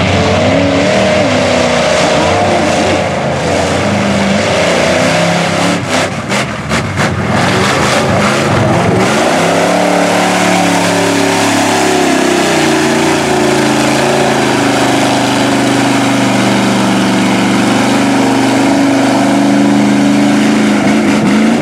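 Lifted Jeep Wrangler mud truck's engine revving hard as it churns through a mud bog pit, its note rising and falling with the throttle. A flurry of sharp knocks and slaps comes about six to eight seconds in, and the engine then holds steady high revs.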